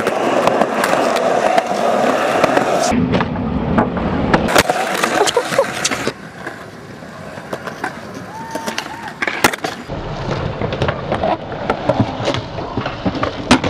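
Skateboard wheels rolling on concrete, with many sharp clacks and knocks of boards striking the ground and ramp edges. The sound changes abruptly a few times as one clip cuts to the next.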